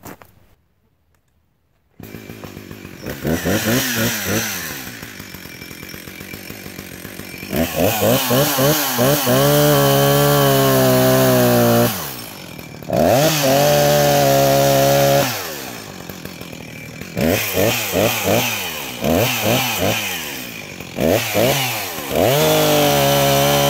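An engine starts up about two seconds in and revs up and down in quick bursts again and again, with stretches held at high, steady revs, the longest near the end.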